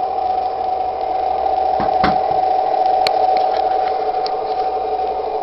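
Toy tank's small electric drive motor and gearbox whining steadily as it drives and turns. There is a sharp click about two seconds in and another about a second later.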